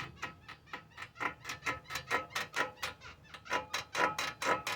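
Front lower ball joint of a 2012 Hyundai Elantra squeaking in a quick regular series, several short creaks a second, growing louder in the second half as the suspension is rocked slowly by hand. The mechanic takes it for a dry, worn ball joint rather than the tie-rod end.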